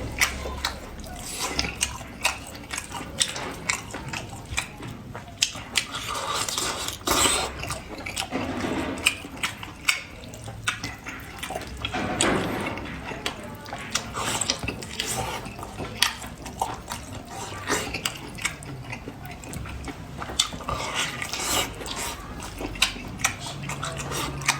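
Close-miked wet chewing, slurping and lip-smacking of spiced sheep's head meat, the tongue, with many sharp wet clicks and smacks.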